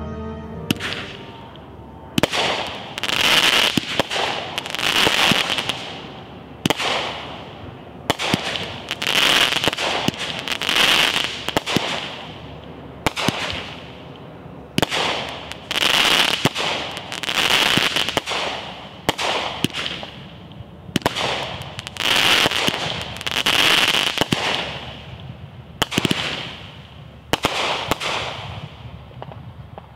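A 200-gram consumer firework cake firing shot after shot, roughly one every second or so, each launch and break followed by a hiss that fades over about a second as the stars and willow effects fall.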